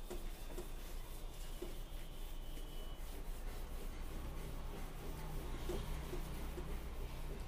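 A handheld whiteboard eraser wiping marker writing off a whiteboard in repeated rubbing strokes.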